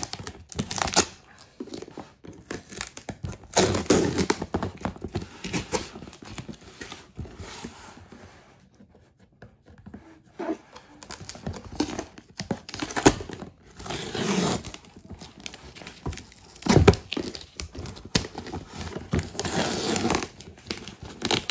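Plastic packing tape being picked at and peeled off a cardboard shipping box in short rips, with fingernails scratching on the cardboard. A sharp knock on the box sounds about two-thirds of the way through.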